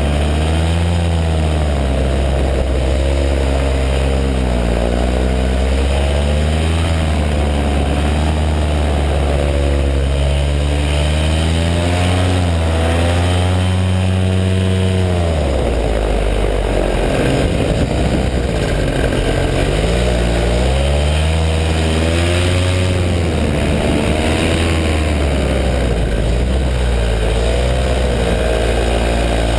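Paramotor engine and propeller running in flight, the engine pitch wavering up and down. About halfway through the pitch drops for several seconds, then rises again.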